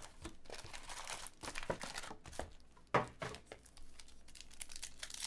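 Foil-wrapped trading-card packs crinkling and rustling as they are handled and lifted out of a cardboard hobby box, with a louder crackle about three seconds in.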